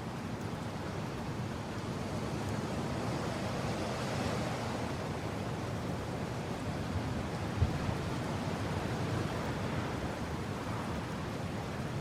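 Wind blowing steadily, a mass of noise without tone, swelling slightly about four seconds in. A brief low thump about two-thirds of the way through.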